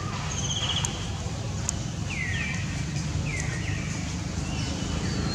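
Short, high-pitched falling chirps from an animal, repeated several times about a second apart, with a brief trill near the start, over a steady low outdoor rumble.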